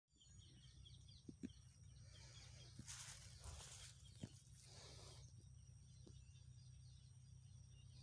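Near silence: faint steady background hum with a few soft clicks and faint bird chirps.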